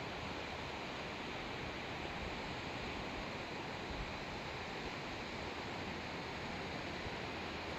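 Steady, even hiss with no clear pitch, unchanging throughout.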